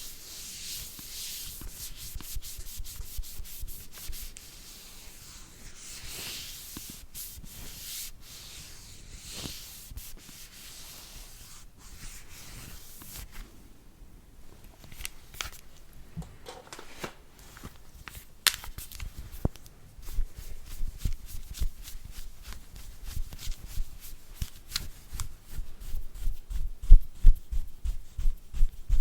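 Bristle brush scrubbing in quick scratchy strokes. The scrubbing thins out about halfway, and in the second half rapid soft low thumps build up and grow louder.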